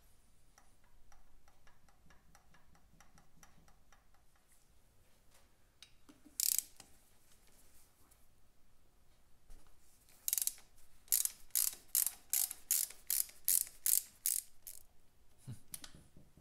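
Hand ratchet wrench loosening a carburetor's mounting nuts. Light, fast clicking comes first, then one loud ratchet stroke, then a run of about ten loud strokes at two to three a second in the second half.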